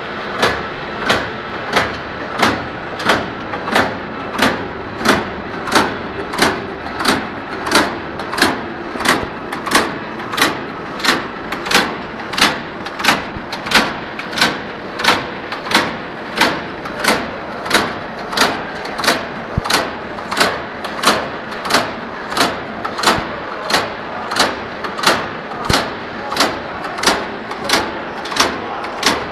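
Dog-chew strip cutter chopping the extruded strand into sticks: a sharp, even clack about one and a half times a second, over a steady machine hum.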